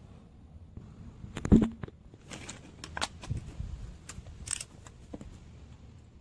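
Scattered clicks and metallic knocks of hand tools and parts being handled during car repair work. The heaviest knock comes about one and a half seconds in, followed by several lighter clicks.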